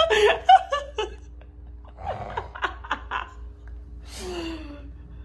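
People laughing: loud bursts of laughter in the first second, then a run of short, quick giggles and a longer breathy laugh about four seconds in.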